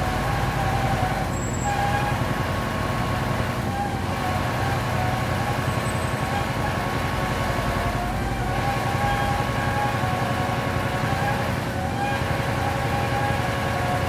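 Asphalt paving machinery running steadily: a continuous engine drone with a steady tone and a wavering whine over it, as cars drive past close by.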